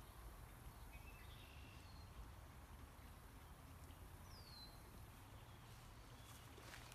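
Near silence: quiet outdoor ambience with a low rumble and a few faint, high chirps, the clearest a short falling one about four seconds in.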